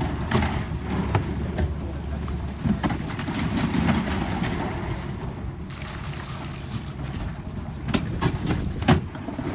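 A small boat's engine running under way, with wind buffeting the microphone and water rushing past the hull. A few sharp knocks come near the end, the loudest about nine seconds in.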